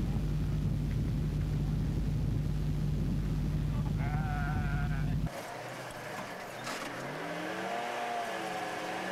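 Steady low drone of a vehicle engine running, with a short wavering call about four seconds in. The drone cuts off abruptly after about five seconds, giving way to a quieter passage of slow, wavering tones that slide up and down.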